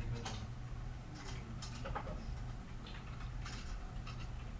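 A scatter of light clicks at uneven intervals, about eight of them, over a steady low hum.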